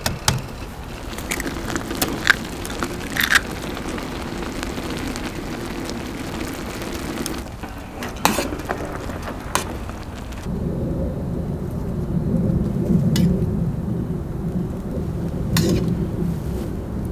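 Firewood burning inside a small stainless-steel camping wood stove, crackling with sharp pops now and then, under a pan of noodle soup boiling on the stove top. About ten seconds in, a low steady rumble comes to the fore.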